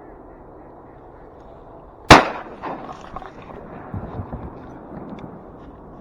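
A single loud shotgun shot about two seconds in, fading quickly, fired at a ring-necked duck and missed. Softer knocks and rustling follow.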